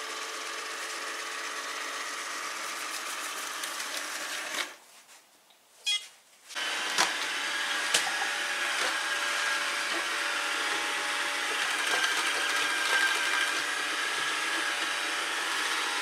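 Kitfort KT-533 robot vacuum cleaner running with a steady motor whir, broken by a drop to near silence for about two seconds a little after the four-second mark. When it resumes, there are a couple of sharp knocks as the robot bumps against chair legs.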